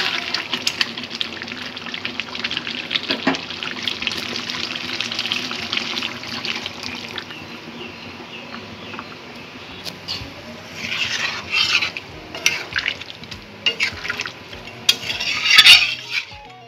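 Chicken curry sizzling in a kadai while a metal spoon stirs and scrapes against the pan, then warm water poured in from a steel bowl, splashing into the pan in a few bursts during the second half, with more stirring near the end.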